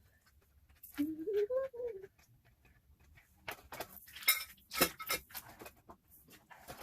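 Caster wheels being pushed by hand into the ends of a garment rack's legs: a cluster of sharp clicks and knocks, loudest twice near the middle. Before that comes a short vocal sound that rises and falls in pitch.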